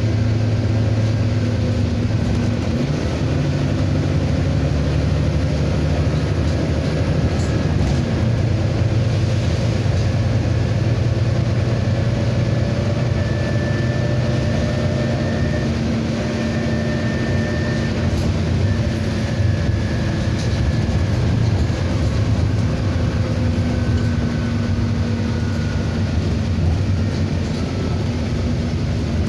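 Inside a Volvo B9TL double-decker bus under way: its six-cylinder diesel engine running steadily, its note shifting a couple of times in the first few seconds. A faint high whine comes and goes in the middle.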